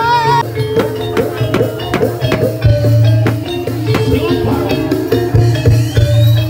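Live Javanese barongan accompaniment music: quick, dense drum strikes over held ringing tones and a deep low hum, with a wavering melody line that stops just after the start.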